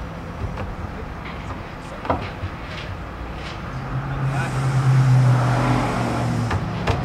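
Knocks and taps of wooden parts as a wall bed's footboard is worked onto its pins and pushed up, with a sharper knock about two seconds in and another near the end. A steady low drone builds about four seconds in and fades out shortly before the end.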